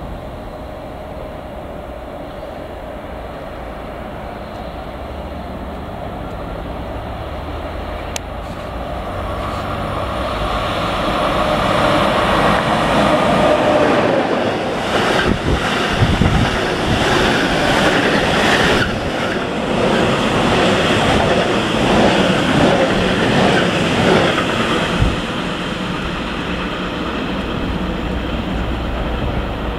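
A train passing through a station, growing louder to a close pass with wheels knocking over rail joints, then receding.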